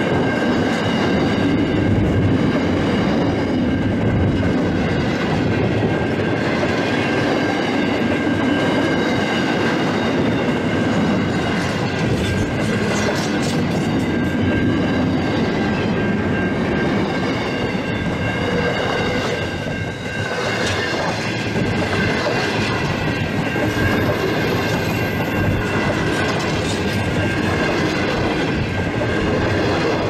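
Container freight train's flat wagons rolling past, a steady rumble with wheel clatter on the rails and a steady high ringing over it.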